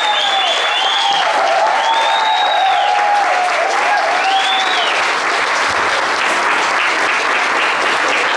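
Audience applauding. Rising-and-falling cheering calls ride over the clapping and die away about halfway through.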